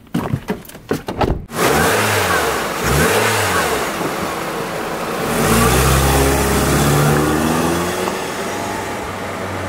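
A few clicks and knocks from the door and controls, then the Nissan Cube's four-cylinder engine running and revving twice, rising and falling each time. About five seconds in it pulls away, its engine note climbing slowly and steadily as the car accelerates.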